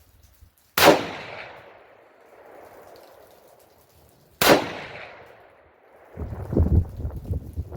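Two shots from an Egyptian Hakim semi-automatic rifle in 8mm Mauser, about four seconds apart, each followed by a fading echo. From about six seconds in, a low, uneven rumble.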